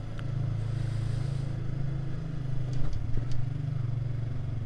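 Motorcycle engine running steadily at low speed while riding, with a couple of light clicks about three seconds in.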